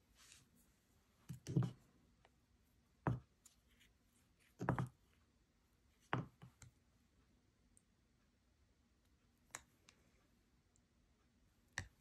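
About half a dozen sharp clicks and light knocks at irregular intervals from handling objects on a work table, the strongest a little over a second in and near the middle.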